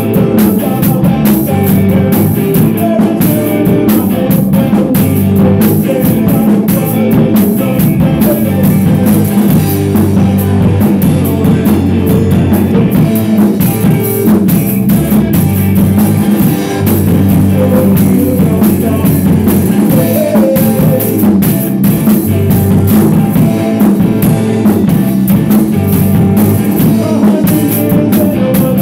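A rock band playing a song loud, heard live in the room: electric guitar over a drum kit with cymbals.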